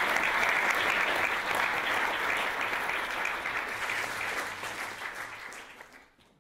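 Audience applauding, the clapping gradually fading away near the end.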